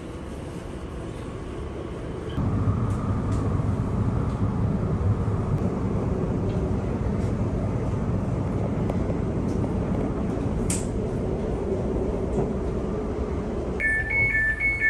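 Cabin noise of an Elizabeth line Class 345 train running between stations: a steady rumble and rush of wheels on rail, which steps up louder about two seconds in. Near the end a steady two-tone electronic sound starts.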